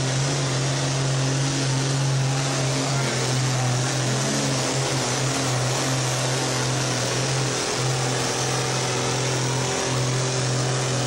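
John Deere hot farm tractor's diesel engine running flat out under load as it drags a weight-transfer pulling sled down the track, a loud steady drone that holds one pitch with only brief dips.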